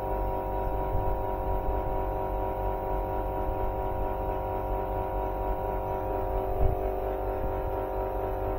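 Outdoor air-conditioner condensing unit running while being charged with R22 refrigerant: a steady hum with an unchanging tonal drone over a low rumble. There is a brief knock about two-thirds of the way through.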